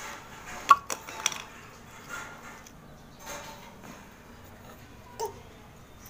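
A blade scraping a dry lump of multani mitti (Fuller's earth clay) in several separate strokes, with crisp clicks and crackles as flakes break off. The sharpest clicks come in the first second and a half, and further strokes follow every second or so.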